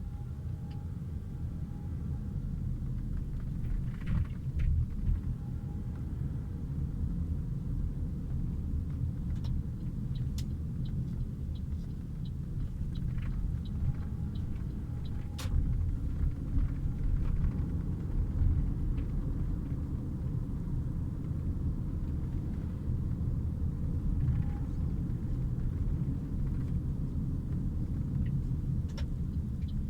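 Toyota RAV4 exhaust running with a steady low rumble, the abnormal exhaust noise the owner is showing, with a few sharp ticks scattered through it.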